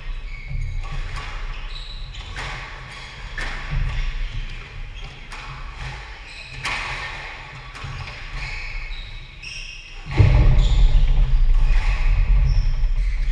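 Squash rally: the ball cracking off rackets and the court walls every second or so, with shoes squeaking on the wooden floor. From about ten seconds in, a loud low rumble lies over it.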